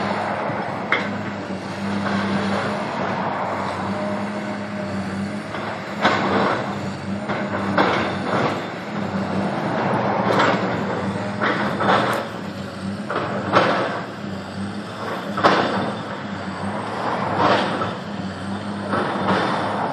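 Traffic passing close by, a car and then a dump truck, over the steady drone of a diesel engine, with a series of sharp bangs and crashes roughly every two seconds from about six seconds in as a Caterpillar 365BL excavator breaks up the rubble of a demolished building.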